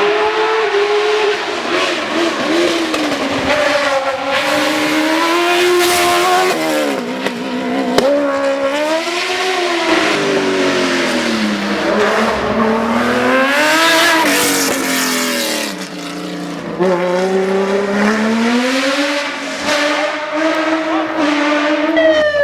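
Hill-climb race car engine at high revs, its pitch climbing and dropping again and again as the driver accelerates, lifts and shifts through the bends.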